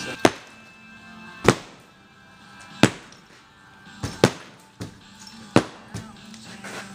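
Hammer blows on brickwork: sharp, separate strikes about once a second, two of them close together a little past the middle, as a brick wall is knocked down. Music plays faintly underneath.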